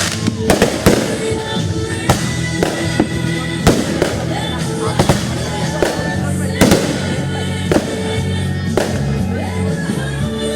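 Fireworks going off in a string of sharp bangs about once a second, over loud music with held notes.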